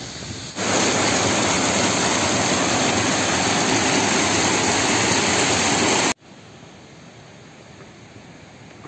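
Rushing mountain stream tumbling over rocks, a loud steady rush of water. It cuts off abruptly about six seconds in to a much fainter steady hiss.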